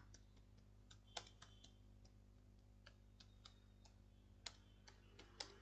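Faint keystrokes on a computer keyboard: a dozen or so separate, irregularly spaced key clicks as a short phrase is typed.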